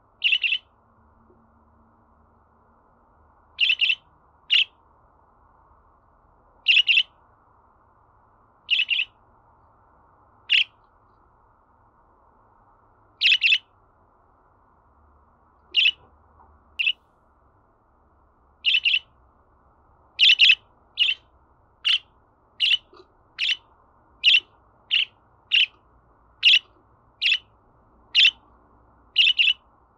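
Budgerigar chirping: short, high chirps, singly or in quick pairs, a few seconds apart at first and about one a second from about two-thirds of the way in.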